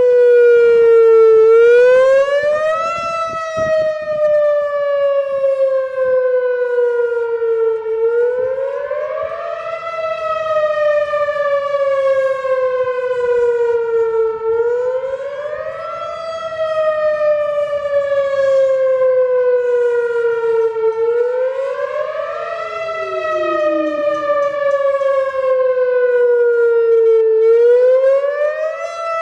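Whelen WPS-4004 electronic outdoor warning siren sounding its wail tone, very loud. The pitch climbs quickly for about a second and a half, then slides slowly down for about five seconds, and this rise and fall repeats five times.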